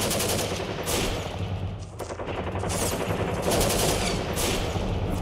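Bursts of rapid automatic gunfire, a recorded sound effect played over the hall's sound system for a stage battle, ringing in the room.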